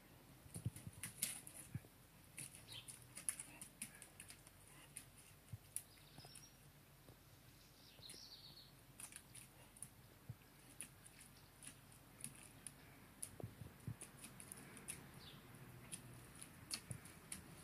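Faint, irregular clicks of a wet Leonberger's claws on stone patio slabs as it walks and turns, with two brief faint bird chirps about six and eight seconds in.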